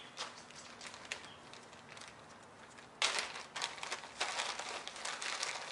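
Plastic packaging bag crinkling as it is handled. It is faint at first, then loud and continuous from about three seconds in.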